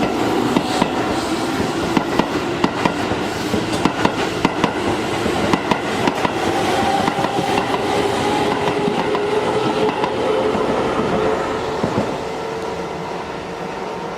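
Keihan electric train running on the rails, its wheels clicking rapidly over rail joints above a steady running noise with a faint motor whine. The clicks thin out about two-thirds of the way through, and the sound drops in level near the end.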